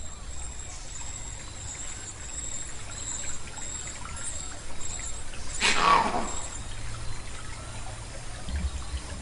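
Water trickling steadily, with a thin high steady tone over it. About six seconds in, one loud sudden sound sweeps downward and dies away within a second.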